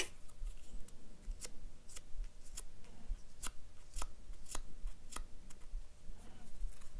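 Small crisp clicks and crinkles of a narrow quilling paper strip being pinched, rubbed and bent between the fingertips as it is shaped into a curve: about a dozen sharp, irregularly spaced ticks.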